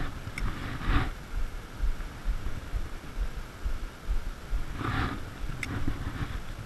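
Low, uneven rumble of wind buffeting a body-worn camera microphone, with two short sharp clicks, one soon after the start and one about five and a half seconds in.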